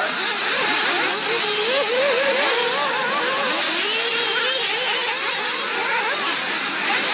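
Several small nitro glow engines of radio-controlled off-road buggies racing together, their high-pitched whines overlapping and rising and falling constantly as the cars accelerate and ease off around the track.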